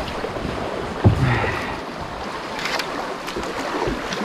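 Fast, muddy river current rushing steadily around a kayak, with a single thump about a second in.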